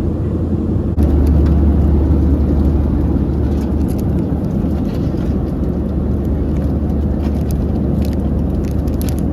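Boeing 737-700 cabin noise in flight: the steady low drone of the engines and airflow, stepping up in level about a second in.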